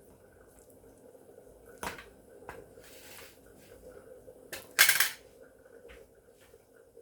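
Dishes and utensils handled in a kitchen: a sharp clink about two seconds in, a few soft knocks, and a louder brief clatter about five seconds in, over a faint steady hum.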